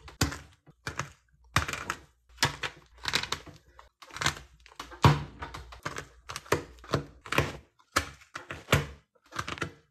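Clear plastic perler-bead pegboards being pulled off a taped bead design, the fused-free beads snapping loose from the pegs in an irregular run of sharp crackling clicks, about one or two clusters a second.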